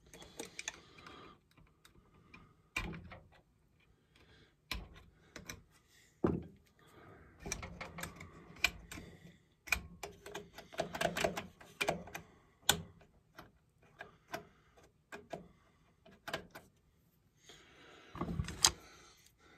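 Irregular clicks, taps and light metallic clatter of small hand tools and parts being worked on a Homelite Super XL-923 chainsaw during reassembly. The clicks come thickest in the middle and again in a short cluster near the end.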